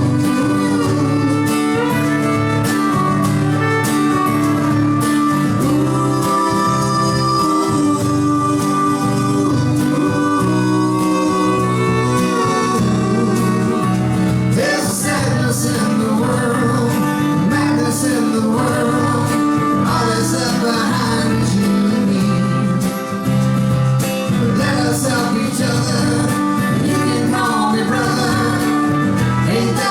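Acoustic country-folk band playing an instrumental break, with guitar accompaniment and fiddle.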